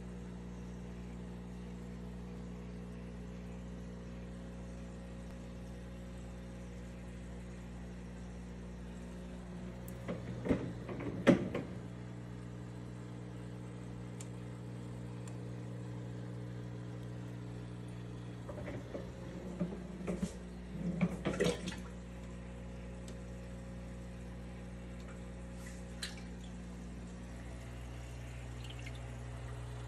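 Aquarium equipment running with a steady low hum and a faint trickle of water. A few knocks and rattles come about ten seconds in, a longer cluster around twenty seconds in, and a single click near the end.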